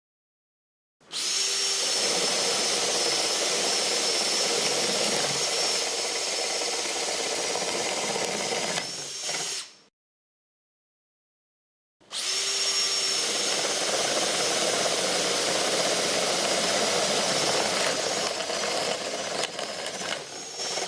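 Power drill boring into wood with an Irwin 4X flat (spade) bit. There are two steady runs of about nine seconds each, a couple of seconds apart, each with a high whine over the cutting noise.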